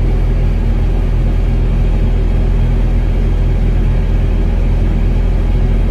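Excavator's diesel engine running steadily with a low, even rumble.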